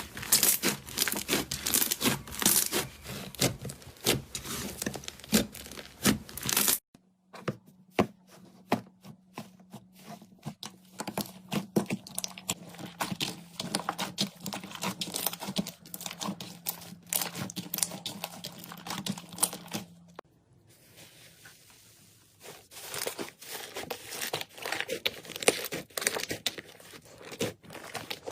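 Slime being squeezed and worked by hand: a dense run of small crackling pops and sticky clicks. It breaks off abruptly about seven seconds in and again about twenty seconds in, each time resuming more quietly.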